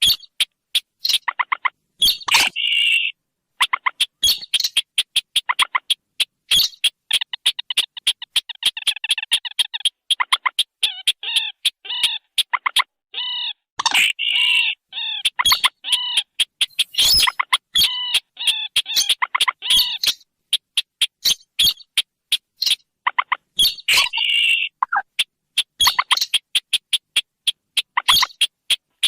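Looped bird-lure recording of sintar and mandar (rail) calls: rapid trains of sharp ticking notes, with repeated chattering, stacked call phrases.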